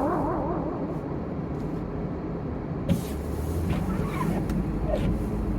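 Steady low road and engine noise inside a moving car. A warbling tone with echo fades out in the first half-second, and there is a single click about three seconds in.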